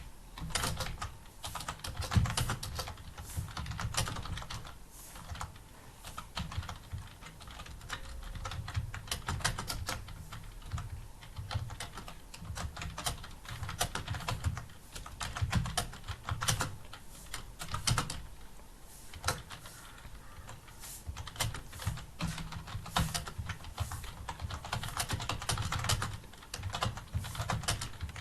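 Fast continuous typing on a computer keyboard: a steady, dense stream of key clicks.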